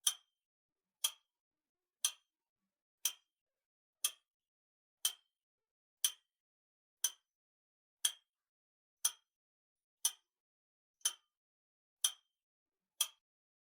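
Clock-ticking sound effect: one sharp, dry tick each second, counting down a one-minute timer. The ticking stops near the end.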